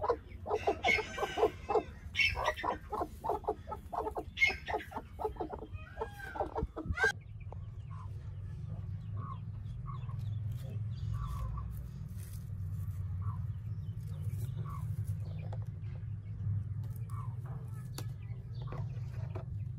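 Broody white Aseel hens on a nest of eggs, clucking in quick repeated pulses, with a couple of rising calls about seven seconds in. After that, faint scattered peeps of newly hatched chicks over a steady low hum.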